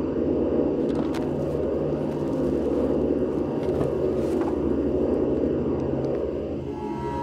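A steady low rumble with a few faint clicks, fading out near the end.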